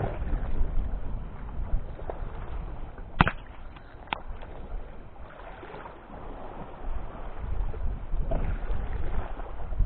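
Water washing and wind noise on the microphone, with two sharp clicks about a second apart near the middle.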